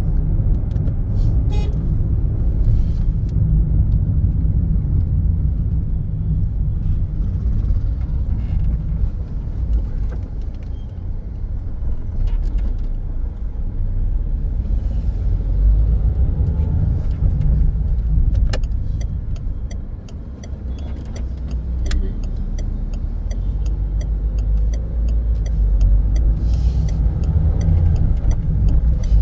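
A moving road vehicle, heard as a steady low rumble that eases briefly about two-thirds of the way through, with a few faint ticks.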